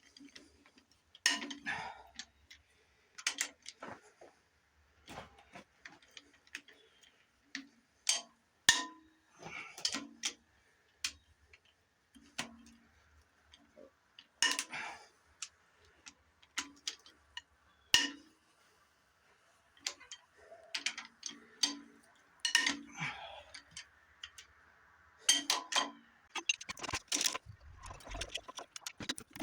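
Metal hand tools clicking and clinking against engine parts, a run of sharp, irregular taps and rattles as the engine is unbolted for teardown.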